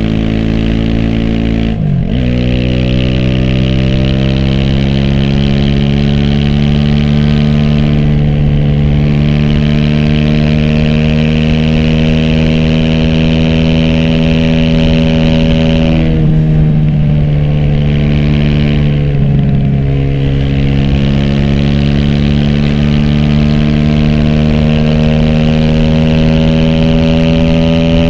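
Aprilia SX 125's single-cylinder four-stroke engine through an Arrow Thunder slip-on exhaust and racing header, riding under way, heard from a phone in the rider's backpack. The engine pitch drops sharply at an upshift about two seconds in, then climbs slowly as the bike pulls. It dips briefly twice past the middle before rising again.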